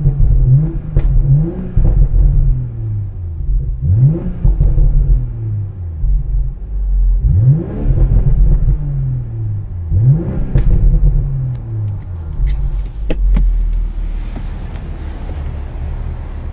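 2020 BMW M340i's turbocharged 3.0-litre inline-six revved four times while parked, each rev a quick rise in pitch and a slower fall back to idle, with a few sharp exhaust pops. From about twelve seconds in it settles to a steady idle rumble with some clicks and knocks.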